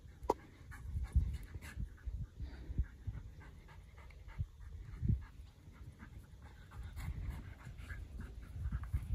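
Two dogs play-wrestling, panting, with irregular low thuds and scuffles from their bodies and paws and a sharp click about a third of a second in.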